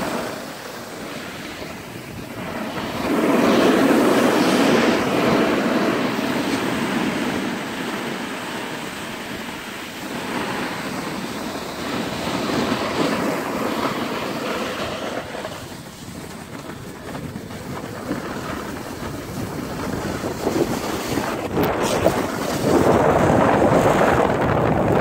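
Wind rushing over the microphone and skis hissing over packed snow during a downhill run, swelling and easing in waves, loudest a few seconds in and again near the end.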